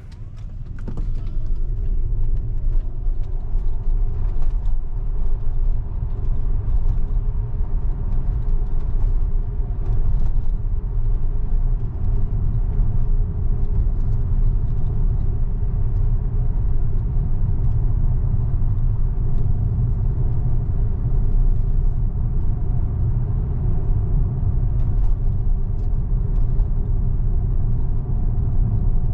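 Road and tyre noise inside the cabin of a moving Tesla electric car: a steady low rumble.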